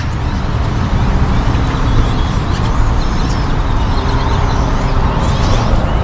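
A huge flock of birds calling overhead, a dense din of many overlapping chirps, over a steady low rumble of traffic.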